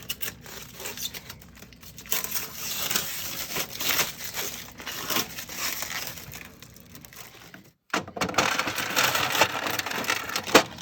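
Packaging being handled and crumpled: crinkling and rustling with many sharp clicks and crackles.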